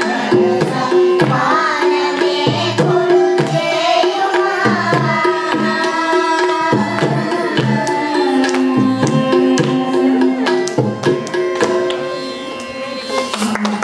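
Carnatic devotional song sung in unison by a woman and a group of young girls, accompanied by violin and mridangam drum strokes. The music gets a little quieter near the end.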